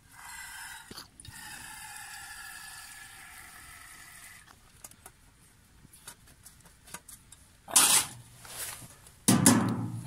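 Fuel alcohol squirted from a plastic squeeze bottle into a small brass alcohol stove, a steady trickling tone for about four seconds. Near the end come two loud metallic clanks from sheet-metal camp cookware being handled; the second rings on briefly.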